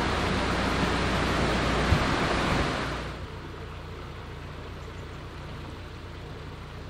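Water gushing into a canal lock chamber through the upper gate paddles, a loud steady rush as the lock fills, with one sharp click near two seconds. It drops away suddenly about three seconds in, leaving a quieter background with a low steady hum.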